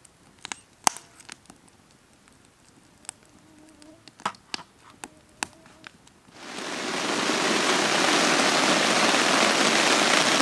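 Wood campfire crackling with scattered sharp pops. About six seconds in it gives way abruptly to pouring rain hissing steadily on a tent, much louder.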